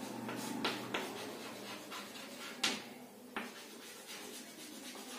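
Chalk writing on a blackboard: faint scratching with a few sharp taps of the chalk against the board.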